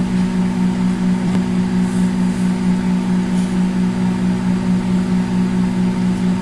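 Microwave oven running: a steady low hum with a slight, even pulsing.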